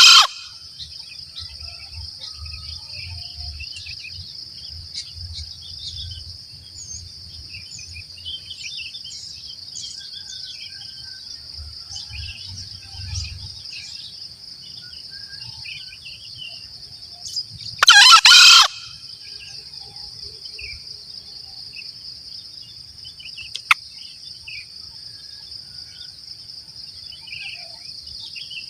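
Green junglefowl rooster crowing: one short, loud crow about two-thirds of the way through, and the tail end of another right at the start. Behind it runs a steady high-pitched insect drone, with scattered chirps of small birds.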